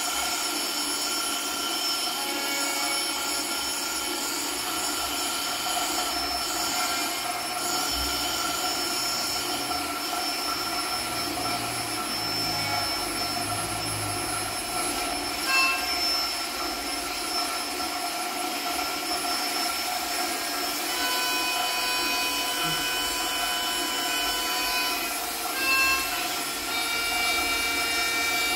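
Experimental electroacoustic sound performance: a dense, steady drone of many held tones over a hiss, with higher tones joining about two-thirds of the way through and two short knocks, one about halfway and one near the end.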